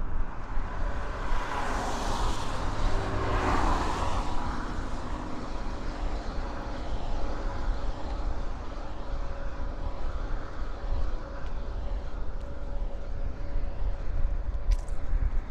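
Road traffic on the bridge: a steady low rumble, with one vehicle passing close and loud from about one to four seconds in.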